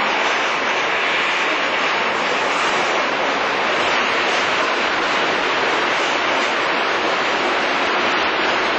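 Yokohama Municipal Subway 1000-series train running alongside an underground platform: a steady, even roar of wheels and motors that holds at one level throughout.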